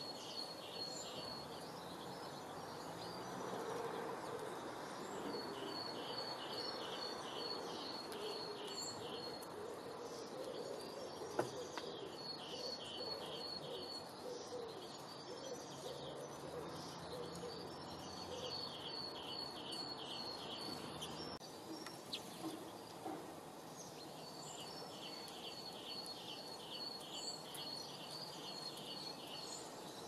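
A songbird singing, about five short phrases of rapid repeated high notes spaced several seconds apart, over a steady outdoor background hiss. A single sharp click about eleven seconds in.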